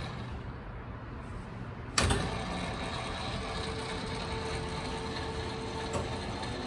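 Feeler FTL-618 tool room lathe's headstock and variable-speed drive running with a low steady hum. A single sharp clunk comes about two seconds in, after which a faint steady whine sits over the hum, with a small click near the end.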